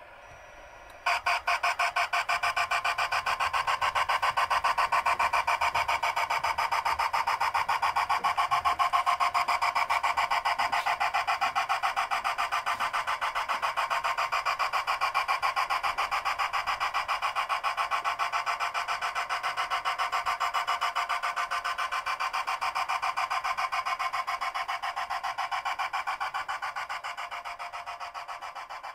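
Simulated steam-engine chuffing from a G scale model steam locomotive. It starts suddenly about a second in as a fast, even run of chuffs, and fades near the end as the train pulls away.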